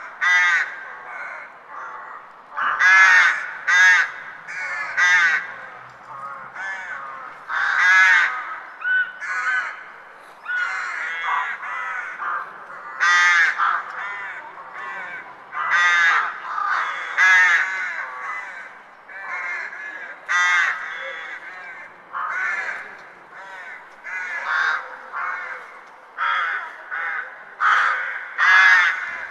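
Birds calling over and over, loud pitched calls coming every second or two, often several in quick succession, with no pause through the whole stretch.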